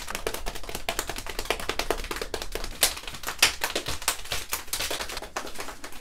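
Several people drumming their hands fast as an improvised drum roll, a dense run of quick taps.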